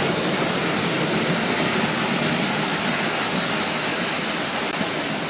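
Märklin H0 model trains running on the layout's metal track: a steady whirring rumble of their electric motors and wheels on the rails.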